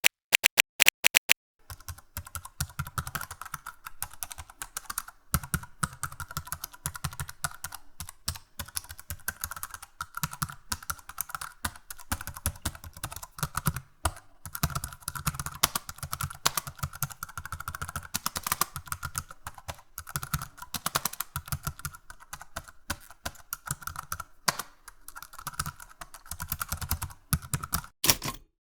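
Rapid, evenly spaced clicks that stop about a second and a half in, followed by a long run of fast, irregular clicking like typing on a computer keyboard.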